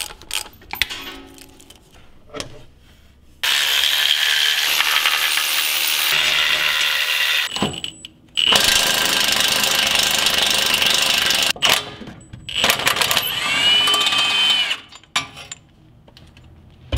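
Milwaukee cordless impact wrench hammering in three bursts, the first about four seconds long, undoing bolts under a Humvee; the last burst ends with a whine that rises and falls. Before the bursts come a few metallic clinks of hand tools.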